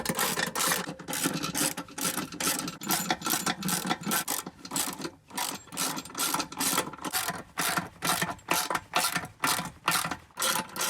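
Ratchet wrench tightening the bolt that clamps a spare tyre down onto a roof box, its pawl clicking in quick, even strokes of about three a second.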